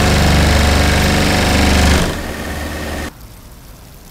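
Vibratory plate compactor running on top of a vinyl sheet pile, driving it into the ground with a loud, steady vibrating drone. The drone eases about two seconds in and cuts off abruptly a second later, leaving only a faint hiss.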